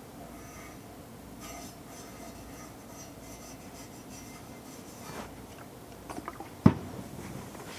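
Light rubbing as seasoning oil is spread by hand over a carbon steel roasting pan, with a few small clicks and one sharp knock near the end.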